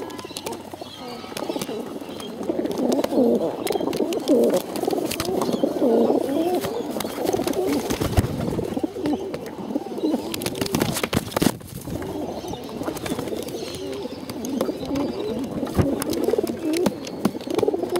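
Several feral pigeons cooing close by, their calls overlapping almost without a break. Scattered sharp taps and knocks run through it, most of them about eight to eleven seconds in.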